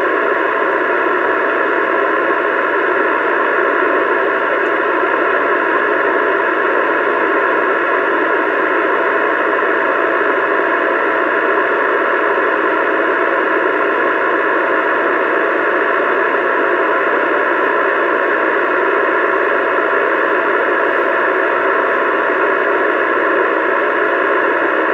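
Steady rushing hiss of static from a CB radio's speaker, held unbroken while a transmission is being received.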